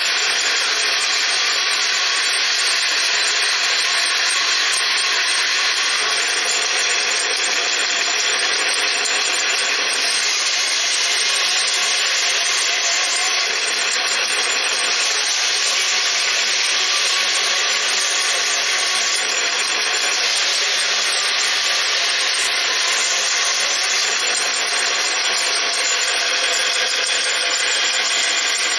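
Miniature model band saw running steadily, its small brushed DC motor and 3:1 spur gear reduction giving a steady high whine, while the thin 15 tpi blade cuts small pieces of pine.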